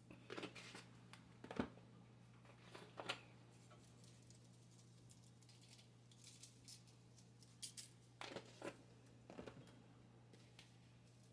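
Faint kitchen handling noises: scattered sharp clicks, taps and rustles in a few short clusters, over a steady low hum.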